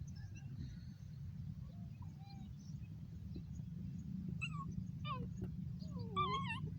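An animal's high-pitched, wavering cries, several short calls starting about two-thirds of the way in and coming closer together near the end, over a steady low hum.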